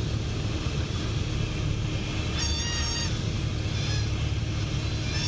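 Cessna 172S's four-cylinder Lycoming engine and propeller droning steadily in the cockpit, with the stall warning horn giving a high, wavering tone a couple of seconds in and again, fainter, a little later: the wing nearing the stall as the nose comes up in the landing flare.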